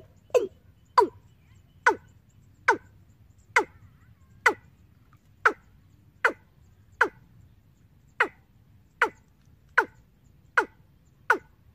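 Recorded bird call played through a horn loudspeaker from a bird-trapping amplifier: short, sharp notes that sweep downward, repeated a little more than once a second. The first note is lower-pitched than the rest. A faint low hum runs underneath.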